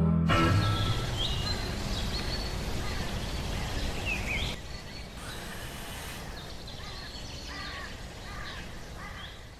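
Ambient background hiss with birds chirping now and then. About four and a half seconds in the ambience changes and drops in level, with the birds still calling.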